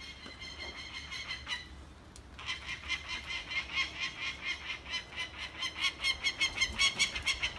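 Adult peregrine falcon giving its harsh repeated alarm call: a short run of calls, a pause, then a fast series of about four calls a second that grows louder. It is defending the eyrie against a person at the nest.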